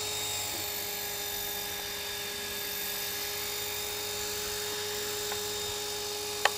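Radio-controlled model helicopter flying, its motor and rotor head giving a steady high whine. A single sharp click comes just before the end.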